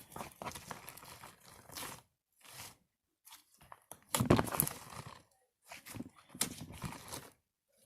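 Slime being kneaded and stretched by hand, sticky squelching and clicking in several bursts, loudest about four seconds in.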